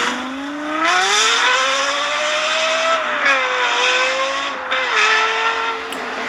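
Lexus LFA's 4.8-litre V10 revving hard, its pitch climbing steeply for about three seconds, then falling back in a couple of steps.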